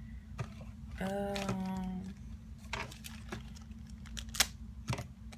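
Small clear plastic packet being handled and opened by hand, giving scattered crinkles and sharp clicks, the sharpest about four seconds in. About a second in, a short steady hum lasts about a second.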